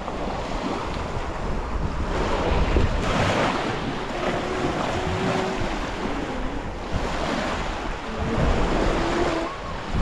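Small lake waves lapping and breaking on a pebble shore, with wind buffeting the microphone.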